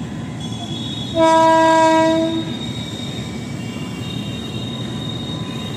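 An Indian Railways electric locomotive sounds its horn once, a single steady blast of a little over a second starting about a second in, over the continuous rumble of the train crossing a steel truss bridge.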